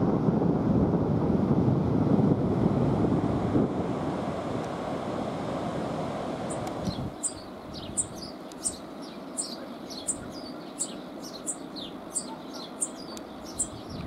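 Wind buffeting the microphone, a loud steady rush that fades out about six seconds in. Then a New Zealand bellbird gives quick, high, short chirps, about two a second.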